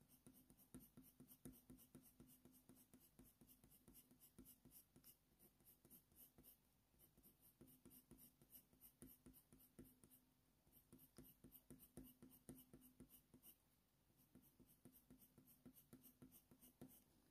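Very faint scratching of a Faber-Castell Polychromos coloured pencil shading on hot-press watercolour paper: many quick short strokes, several a second, in a steady rhythm.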